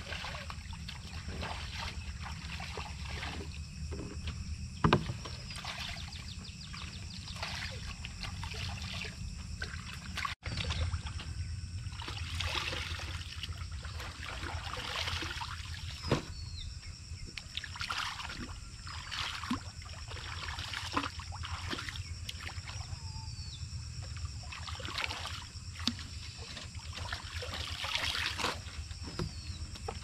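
Water sloshing and splashing, with irregular knocks and handling sounds.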